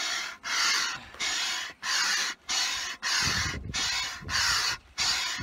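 Hand air pump inflating an inflatable boat: a rushing hiss of air with each stroke, close to two strokes a second, broken by a short pause at each turn of the stroke. A low rumble joins in about three seconds in.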